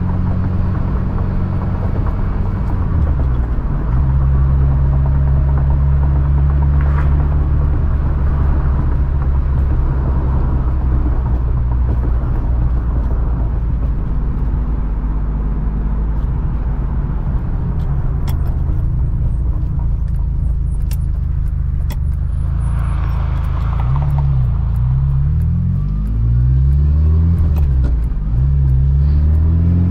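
Ferrari 328 GTB's 3.2-litre V8 running steadily while cruising at light throttle, its revs dropping once about three seconds in. Near the end the car accelerates: the engine note rises and drops several times in a row as it shifts up through the gears.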